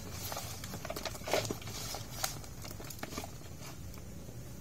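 Small fish being grabbed by hand and packed into a plastic cup inside a plastic basin: scattered wet clicks and patters of fish against plastic.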